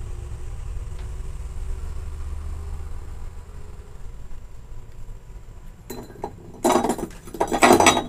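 Low steady rumble under soldering work, then from about six seconds in a run of sharp clinks and rattles of small metal tools and the circuit board being handled on the bench, loudest near the end.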